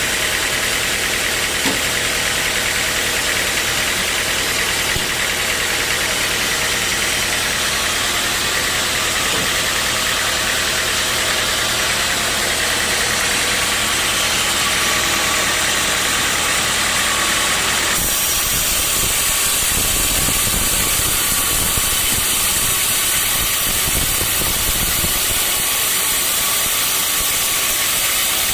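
Sawmill machinery running steadily with a low hum and hiss. About two-thirds of the way through the sound changes abruptly: the steady hum drops away and a rougher, noisier rumble takes over.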